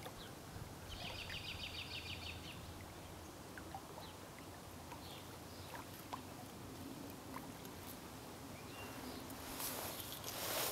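Faint lakeshore ambience with small animal calls: a quick ticking trill about a second in and scattered brief chirps. A soft rush of noise swells near the end.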